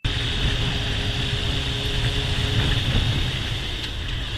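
Sport motorcycle being ridden along at a steady pace, its engine running under a steady rush of wind and road noise.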